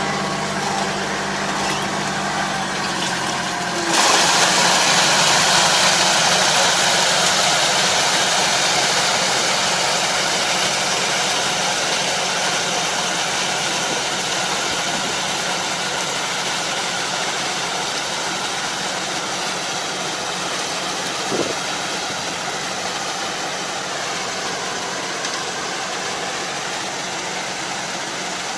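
Farm tractor's diesel engine running steadily while pulling a rotary puddling harrow through a flooded rice paddy, slowly fading as it moves away. A louder rushing noise comes in suddenly about four seconds in, and there is one short knock near the end.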